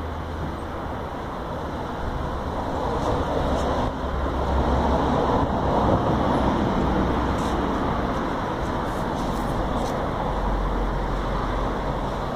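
Steady urban background noise of road traffic: a low rumble and hiss that swells a little in the middle, with a few faint clicks.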